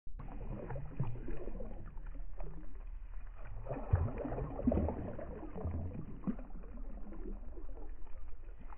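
Shallow seawater sloshing and splashing around bare feet wading over sand, with uneven low sloshes and thumps as the feet move through the water.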